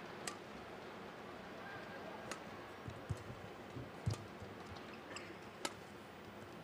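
Badminton rally: four sharp racket strikes on the shuttlecock, about every one and a half to two seconds, with lighter thuds of the players' footwork on the court between them.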